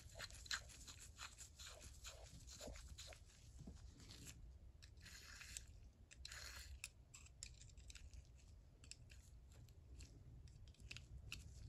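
Faint clicks and scrapes of small steel parts, thickest in the first few seconds. A retention ring is being threaded by hand onto the head of a vintage J.H. Williams S-51 ratchet, then a thin pin tool is set against the ring to tighten it.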